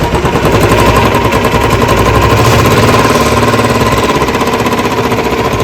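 Royal Enfield Bullet 350 single-cylinder engine running, with a rapid 'tik tik' ticking from the cylinder head. The mechanic traces the tick to worn valves and worn valve guides.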